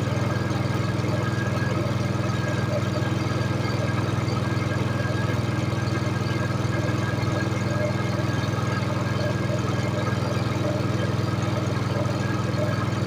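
An engine running steadily at an even speed: a low, unchanging hum with no revving.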